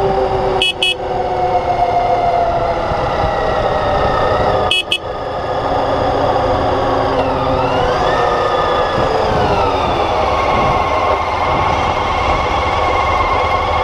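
Motorcycle engine running under way over a steady rush of wind and road noise. Its note falls gently over the first few seconds, then dips and climbs again about halfway through, with two very short breaks in the sound near the start and about five seconds in.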